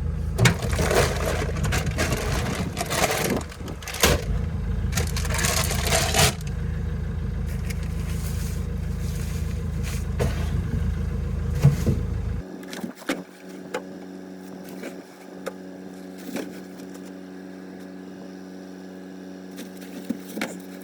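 Farm tractor engine running steadily, with two loud rushing, scraping stretches over it in the first six seconds. About twelve seconds in, the heavy engine sound drops away to a quieter steady hum.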